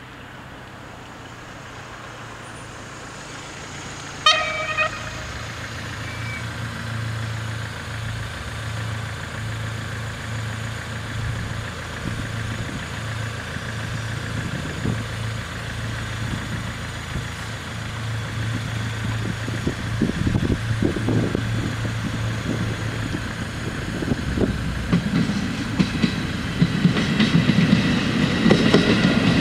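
An approaching HŽPP diesel passenger railcar: one short horn toot about four seconds in, then the diesel engine's low drone growing steadily louder, with wheel and rail clatter building near the end.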